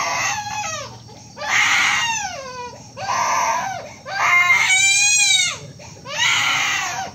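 A baby crying hard: a run of loud wails, each about a second long and falling in pitch at its end, with short catches of breath between them.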